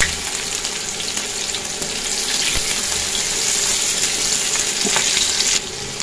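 Sliced onion and crushed garlic sizzling in hot oil in a nonstick pan, the first stage of a tempering (baghar), stirred with a plastic spatula that gives a few light taps. The sizzle eases a little near the end.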